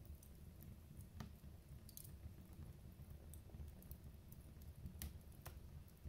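Wood fire crackling faintly in a fireplace, with a few sharp pops. The loudest pops come about five seconds in.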